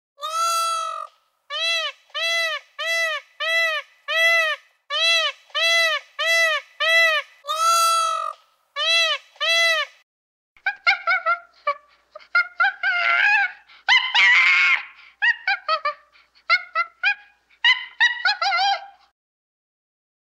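Animal calls: a long run of evenly spaced, arched calls of the same pitch, about two a second, then from about halfway a quicker, more varied series of calls.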